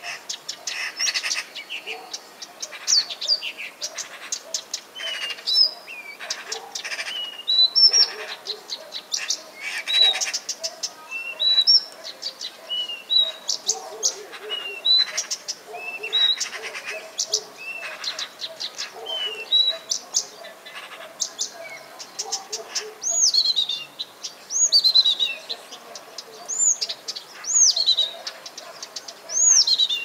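Nightingale singing its varied song: rapid clicking rattles, short piping whistles and repeated notes in quick phrases, turning to looping whistled sweeps over the last few seconds.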